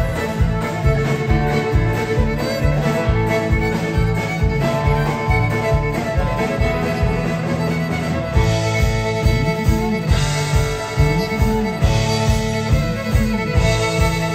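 Live country band playing: a fiddle carries the melody over electric guitars, electric bass and a steady drum beat of about three strokes a second.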